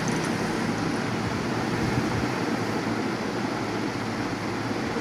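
Three-blade ceiling fan running at speed: a steady rush of air over a low hum, even throughout with no rhythm or clicks.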